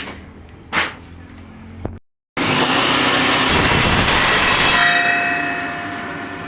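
Two knocks, then a timber-ripping saw machine cutting through a plank with a loud, rough noise for about two seconds. After that the blade runs on with a ringing whine that slowly fades.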